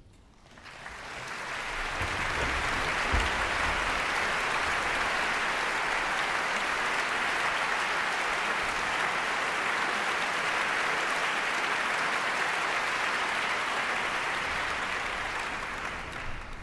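Large concert-hall audience applauding, the clapping swelling up over the first couple of seconds, holding steady, then fading away near the end.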